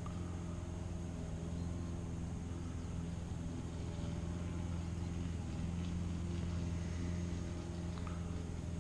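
A steady, low mechanical hum with a constant pitch, like a motor running.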